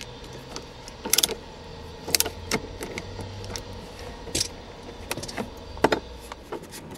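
Scattered small metallic clicks and taps as a set screw is tightened into a shifter knob, about one click a second, over a faint low hum.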